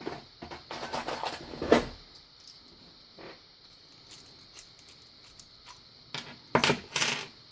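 Small metal hand tools being rummaged through and picked up while the right one for the lock is sought: a run of clicks and clinks, scattered light ticks, then two louder clatters near the end.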